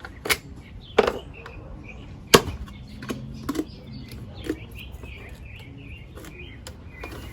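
Handling noise of oil bottles and a funnel: three sharp knocks, the loudest about two and a half seconds in, among lighter clicks and taps.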